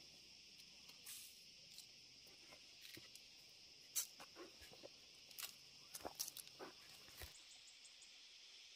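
Faint, steady high-pitched chirring of insects such as crickets, with scattered light clicks and rustles over the middle of the stretch, the sharpest one about four seconds in.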